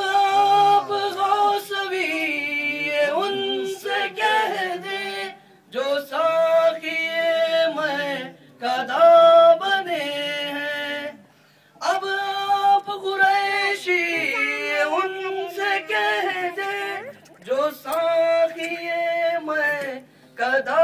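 A man singing a devotional Urdu naat unaccompanied, drawing out long melodic phrases in a high voice, with brief pauses between phrases.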